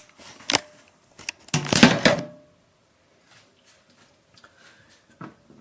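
Handling noises: a couple of sharp knocks, then a short, louder rustling clatter about two seconds in, followed by faint small ticks.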